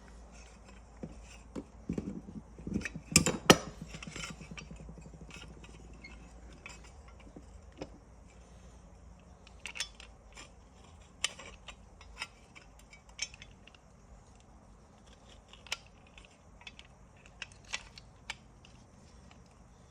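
Seatbelt retractor parts clicking and clinking as they are handled and fitted back together by hand, with a cluster of louder knocks about three seconds in, then scattered light clicks.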